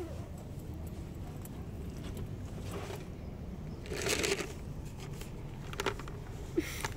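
Short rustling, crackling handling noises over a steady low outdoor rumble, the loudest about four seconds in and two smaller ones near the end.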